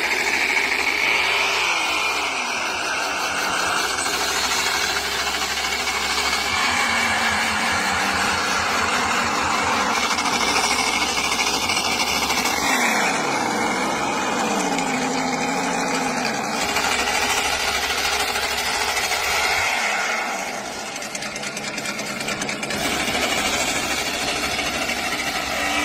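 Engine sound of a custom radio-controlled model vehicle running steadily, its pitch gliding down and back up a few times around the middle.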